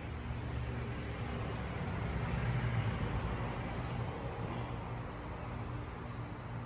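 Distant vehicle traffic: a low engine-and-tyre hum that swells about two to three seconds in and then fades.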